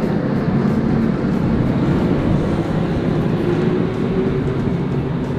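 Outboard boat motors running steadily, with one engine's pitch climbing gradually about halfway through.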